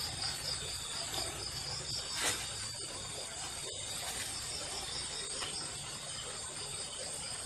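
Insects chirring in the forest at night, a steady high trill that pulses evenly, with one brief tap about two seconds in.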